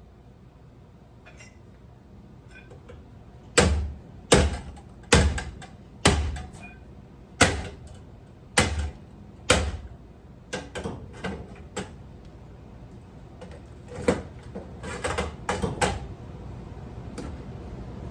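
Ceiling fan being smashed: seven heavy blows, about a second apart, starting a few seconds in, each a deep thud with a sharp crack. They are followed by runs of lighter, quicker knocks and rattles.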